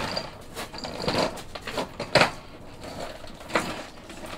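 Wooden chair being moved across a stone patio: a handful of knocks and scrapes, the loudest about two seconds in.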